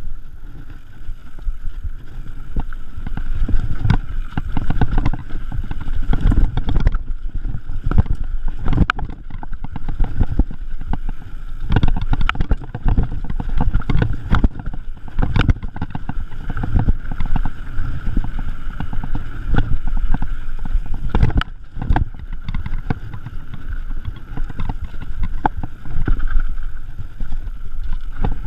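Mountain bike ridden fast down a dry dirt trail: a steady rumble of tyres and rushing air, broken by frequent knocks and rattles of the bike over bumps and roots.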